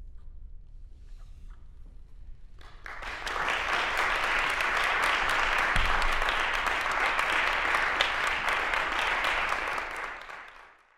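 Audience applauding after a quiet pause of about three seconds, then fading out near the end.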